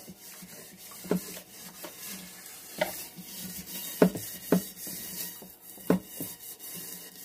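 A Norwex Spirinett stainless steel scrubbing pad scouring dried-on food from the bottom of a stainless steel pot in soapy water: a steady scraping, broken by a handful of sharp knocks, the loudest about four seconds in.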